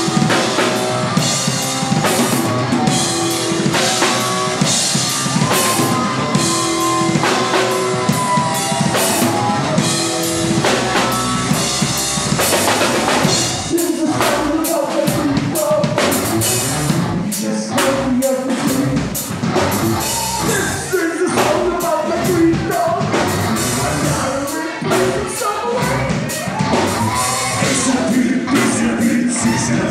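Live horror-punk band playing loud: electric guitar and drum kit, with a singer coming in about halfway through.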